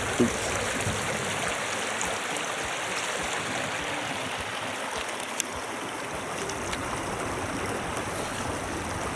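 Shallow river water flowing: a steady rushing, with two brief knocks, one just after the start and one about five seconds in.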